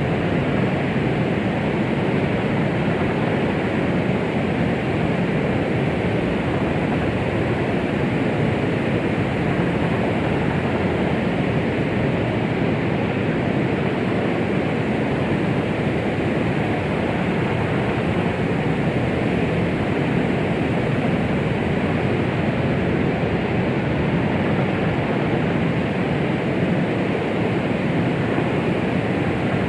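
Steady, unbroken white-noise-style hiss with a deep, muffled tone, most of it in the low and middle range with little treble, played as a womb-sound noise for soothing a baby to sleep.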